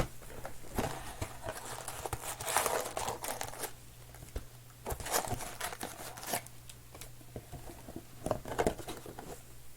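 Trading card pack wrappers crinkling and tearing as packs are ripped open, with irregular crackles and small clicks.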